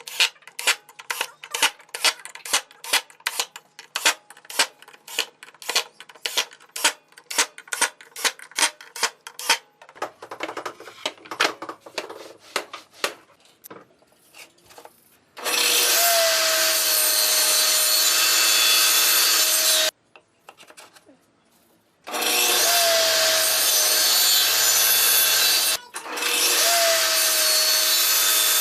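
Wood being worked with quick, rhythmic hand strokes, two to three a second, like sawing or rasping, for about ten seconds. After a pause, a power tool cuts wood in three loud, steady runs of about four seconds each, its pitch dipping slightly as each run begins.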